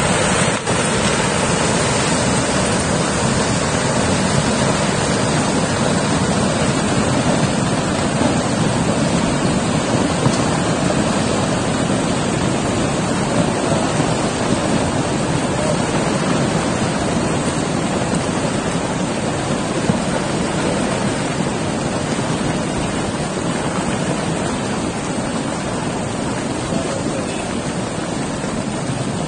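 Landslide: rock and debris pouring down a mountainside in a continuous rush of noise, with a few louder knocks, easing slightly toward the end.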